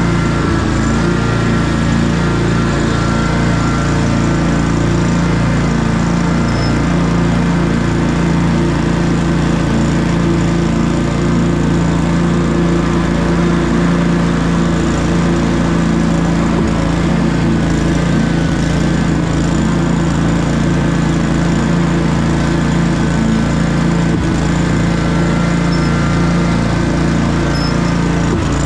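Commercial walk-behind lawn mower's petrol engine running steadily at working speed while it cuts grass, a constant hum with no breaks or changes in speed.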